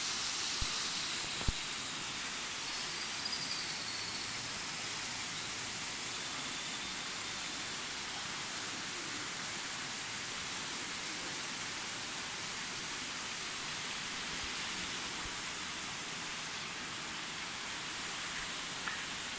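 Steady rush of falling water, an even hiss that holds unchanged throughout, with two light knocks in the first couple of seconds.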